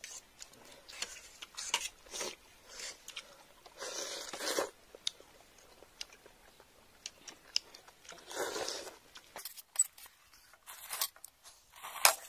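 Eating at the table: instant noodles slurped in short noisy bursts, about four seconds in and again past eight seconds, with chewing and the light clicks of spoons and forks against steel plates; one sharp click near the end is the loudest.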